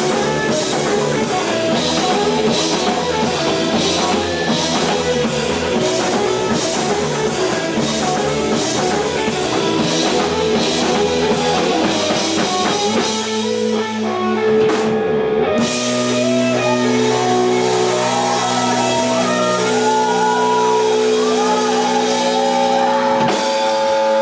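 Live rock band playing: electric guitars, bass and drum kit with steady cymbal strokes, until the drums drop out about two-thirds of the way through, leaving held guitar and bass notes with a melodic guitar line over them.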